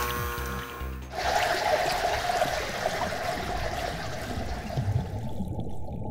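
Bubbling, trickling water over background music, starting about a second in with the cut; before that only the music's steady tones. Near the end the water turns muffled, losing its hiss.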